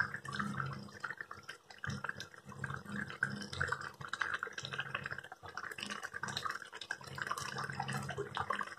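Thin curry gravy bubbling at the boil in a steel pot, with many small irregular pops and a low steady hum underneath.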